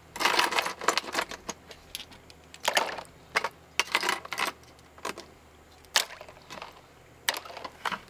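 Metal RF coaxial adapters clinking and jangling together in irregular handfuls as they are scooped out of a plastic sifter basket and dropped into a pan of rinse water.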